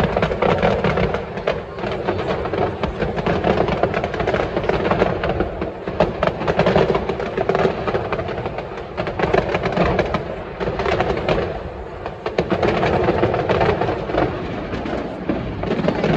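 Fireworks display: a dense, continuous barrage of distant bangs and crackling from many shells bursting in quick succession.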